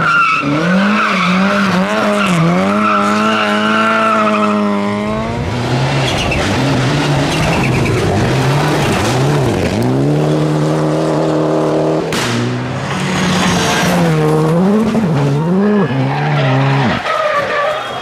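Rally car engines at full throttle, one car after another, revving up and dropping sharply through gear changes and lifts for corners.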